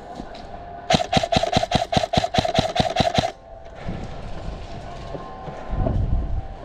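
Airsoft electric rifle, a Krytac Trident MKII CRB-M, firing a rapid string of about fifteen shots at roughly six a second, stopping abruptly. A low rumble rises near the end.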